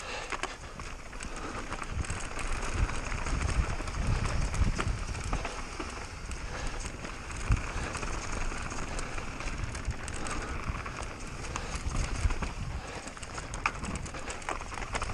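Mountain bike descending a rough trail at speed: a steady rush of tyre and air noise with irregular knocks and rattles as the bike hits rocks and bumps.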